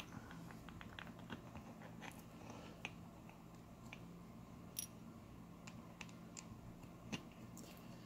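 Faint, scattered small metallic clicks and ticks of a screwdriver working two small Phillips screws out of the back of a brass lock cylinder, over a steady low hum.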